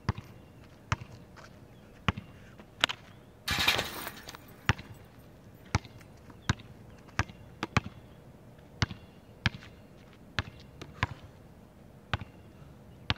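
A basketball bouncing on an outdoor hard court, sharp slaps about once a second at uneven spacing as it is dribbled. About three and a half seconds in there is a brief half-second burst of rattling noise.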